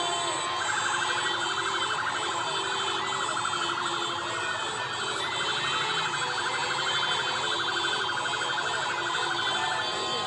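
A siren with a fast warble, starting just under a second in and cutting off near the end, over a crowd cheering and shouting.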